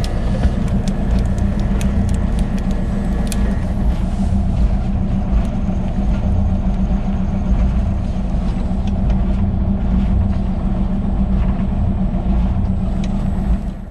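A motor running steadily, a constant low hum over a rumble, with a few faint ticks.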